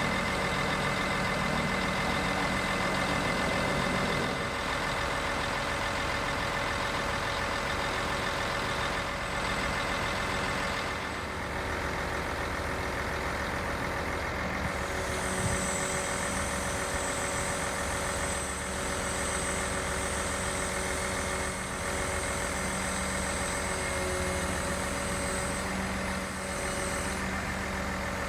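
Diesel engine of a Mercedes-Benz Actros 4144 concrete pump truck running steadily at idle. A high steady whine joins about halfway through and stops shortly before the end.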